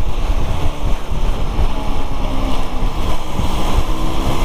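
Steady wind rumble on the microphone while riding a SYM VF3i 185 scooter, its single-cylinder engine running steadily underneath.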